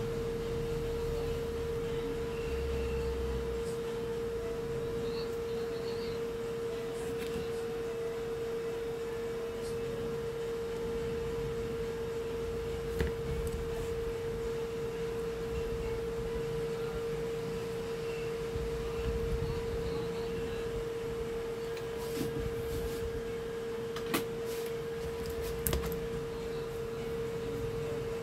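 A steady pure tone held at one pitch, the loudest sound throughout, with a few faint clicks.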